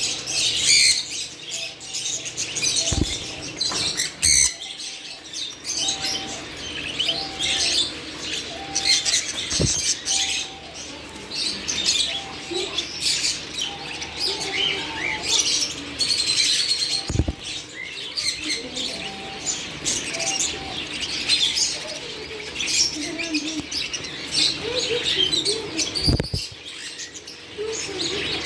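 Green parrots chirping rapidly and continuously in high, quick calls, with a repeated short lower call for a stretch. A few dull thumps land every several seconds.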